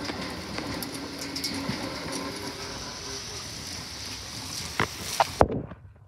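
Keikyu 1000-series electric train passing close by, a steady rumble of wheels on rail with a hum from the running gear. Near the end come three sharp knocks, then the sound drops away suddenly.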